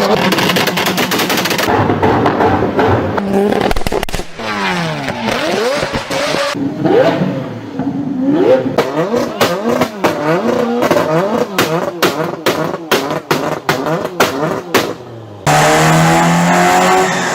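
Performance car exhausts revving up and down, with rapid runs of sharp pops and crackles between the revs. Near the end it cuts to an engine holding a steady drone.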